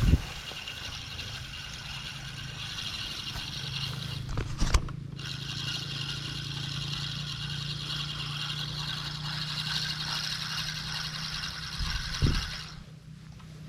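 Daiwa Certate 4000 spinning reel being cranked to retrieve line: a steady whirring that pauses briefly about four and a half seconds in and stops abruptly near the end. A few short thumps fall at the start, at the pause and just before it stops.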